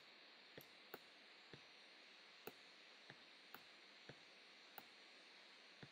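Computer mouse buttons clicking faintly, about ten single clicks at uneven intervals.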